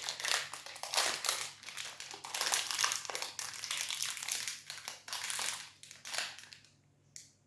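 Plastic protein-bar wrapper crinkling as it is handled and opened. The crackle is dense and busy, dies away about six and a half seconds in, and is followed by a single faint click.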